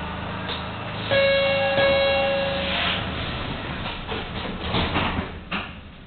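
Door chime aboard a 1982 Kawasaki B-IV subway car: about a second in, a two-stroke electronic chime sounds, warning that the doors are closing, over the car's steady low hum. Then the doors slide shut with a few knocks and a thump near the end.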